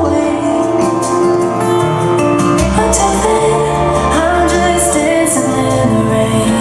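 Song with a singing voice over sustained instrumental backing and a bass line that changes notes twice.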